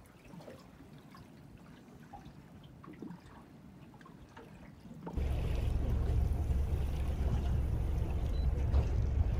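Faint, quiet start with a few small ticks; about five seconds in, the steady low rumble of a small outboard-powered boat under way cuts in suddenly, with water rushing past the hull.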